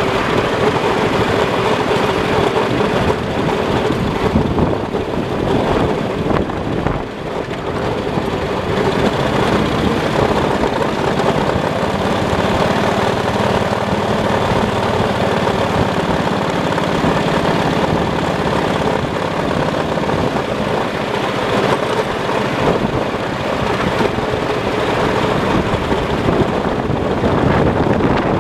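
Ride-on miniature railway locomotive running steadily along the track, heard close up from its front end, with a brief dip in the noise about seven seconds in.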